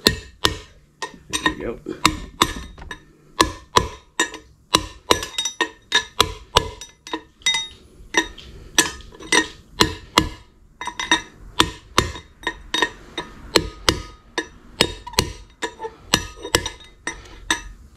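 Hand hammer striking a steel driver, about two blows a second with a few short pauses, each blow ringing metallically. The part is being seated into a truck's rear wheel hub by tapping all the way around, so that it goes in evenly and does not kink or cock in its bore.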